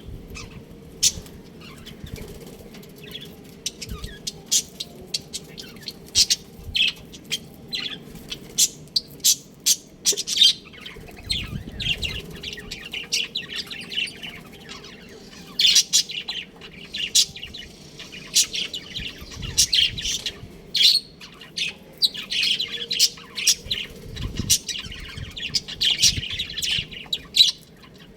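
A group of budgerigars chirping and chattering: many short, sharp chirps over a running warble, with a few low thumps among them.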